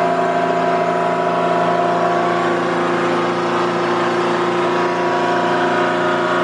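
Rainman portable watermaker running, a steady machine drone with several steady tones. Its pressure is being backed off toward zero, the first step of shutting it down for a freshwater rinse.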